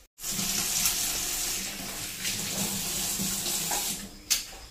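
Kitchen tap running into a stainless steel sink while hands rinse something under the stream. The flow drops away about four seconds in, followed by a single sharp click.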